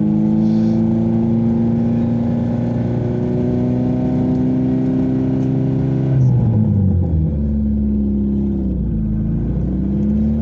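VAZ-2115's 1.5-litre fuel-injected four-cylinder engine running in gear through its five-speed manual gearbox, revs slowly rising, then dropping sharply about six seconds in as a gear is changed, and climbing again.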